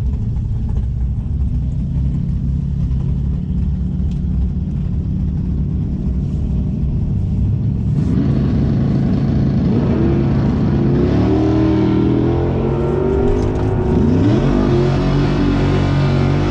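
Steady low rumble for the first half. About eight seconds in, nearby drag-racing cars' engines start revving up and down, several pitches rising and falling over one another.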